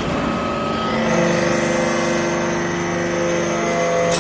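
Hydraulic metal-swarf briquetting press on its pressing stroke: the hydraulic power unit runs under load with a steady whine as the ram drives down into the mould. A sharp click comes near the end.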